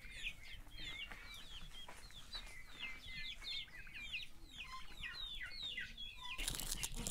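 A flock of resting chickens giving a steady run of short, high chirping calls, several a second, with an occasional lower cluck. A louder, noisy sound comes in near the end.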